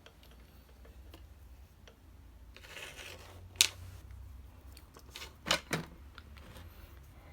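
Small handling clicks and taps: a brief rustle, then one sharp click about halfway through and two quicker taps a couple of seconds later, over a faint low hum.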